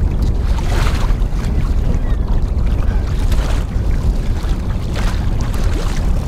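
Wind buffeting the microphone in a steady low rumble, with choppy waves washing and slapping against a kayak's hull every second or two.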